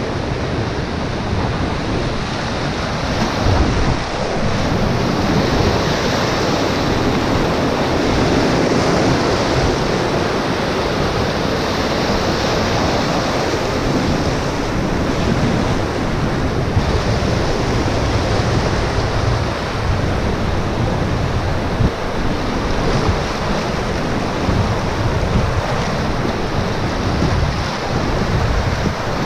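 River whitewater rapids rushing and churning around an inflatable standup paddleboard running downstream, a loud, steady wash of water noise. Wind buffets the microphone in an uneven low rumble.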